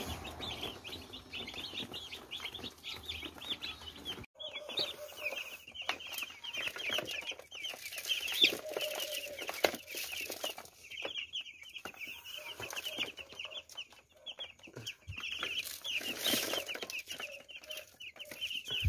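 A brood of broiler chicks peeping nonstop, many quick high peeps overlapping. The peeping breaks off briefly about four seconds in, and a couple of sharp knocks stand out near the middle.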